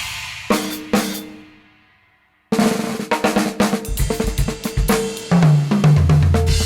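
Drum-kit music: three loud accented hits about half a second apart ring out and fade into a brief silence, then about two and a half seconds in the full kit comes back with busy snare, cymbal and bass-drum playing over low bass notes.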